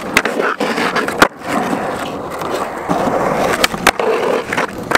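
Skateboard popping up onto a concrete ledge with a loud clack about a second in, then its trucks grinding along the ledge edge in a steady scrape, with a few more sharp clacks near the end.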